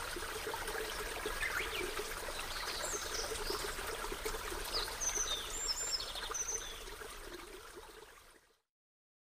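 Running water with short high bird chirps over it, fading out to silence near the end.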